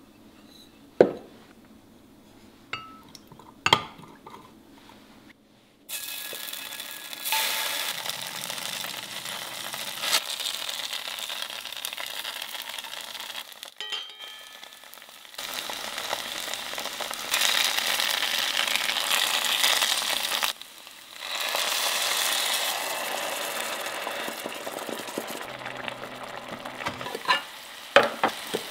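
A few sharp clinks of a metal spoon against a glass mug as sauce is mixed. Then, from about six seconds in, tofu cubes sizzle steadily in oil in an enamelled cast-iron pot, the sizzle jumping louder and softer several times. There are a couple of sharp knocks near the end.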